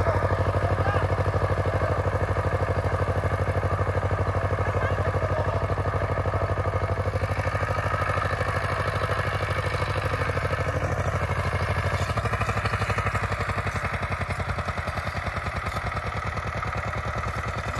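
Walk-behind power tiller engine running steadily with an even, rapid pulse as it cuts furrows in the field, growing gradually fainter as the machine moves away.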